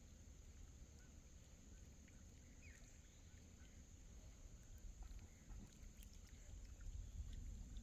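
Near silence: faint lakeside ambience with a low rumble of wind on the microphone, a steady faint high hum, and a few faint chirps.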